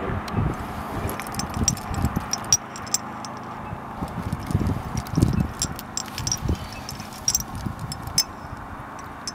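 Metal climbing gear on a trad rack clinking and jangling, carabiners and cams knocking together on the harness as the climber moves up the rock, with irregular scuffs and knocks. A steady hum of distant highway traffic runs underneath.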